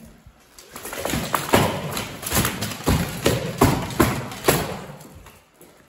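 A fast sparring exchange with practice swords: about eight sharp knocks of blades meeting and hitting armour, from about a second in, then dying away. Between the knocks there is a rattle of moving plate armour and feet on a wooden floor.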